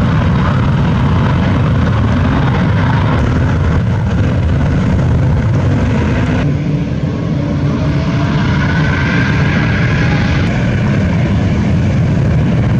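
Jet airliner engine noise: a loud, steady rumble that changes abruptly three times as the recording cuts from one aircraft to the next.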